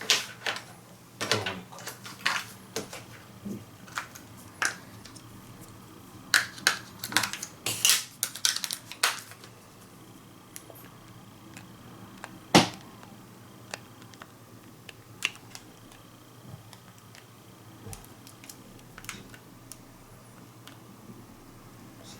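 Sharp plastic clicks and taps from a TV remote control being handled and snapped together, thick in the first half, with one loud snap about halfway through, then only a few scattered clicks.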